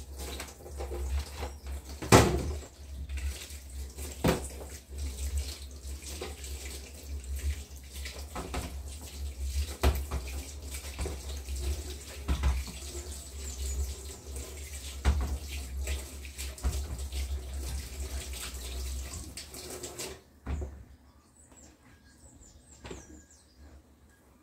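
Water from a kitchen tap running into a sink while hands work under it, with scattered knocks and clatters, one sharp knock about two seconds in. The water is turned off about 20 seconds in, leaving a few small clicks.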